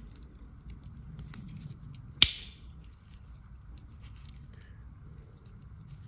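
Handling of a Victorinox 111mm Swiss Army knife's tools: faint small clicks and rubbing, and one sharp metallic snap about two seconds in as a tool springs open or shut on its backspring.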